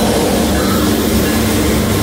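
Diesel-electric freight locomotives passing close by, their engines running with a loud, steady drone under the rolling of wheels on the rails.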